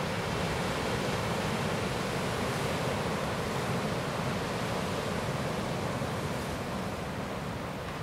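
Sea surf washing steadily, a continuous rushing noise of waves, easing slightly near the end.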